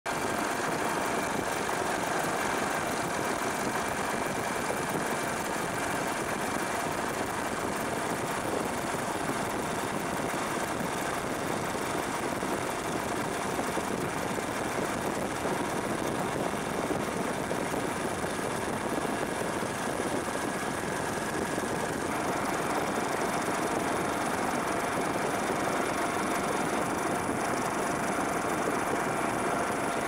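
Helicopter engine and rotor noise heard from on board: a steady rushing drone with a few fixed whining tones, its tone shifting slightly about two-thirds of the way through.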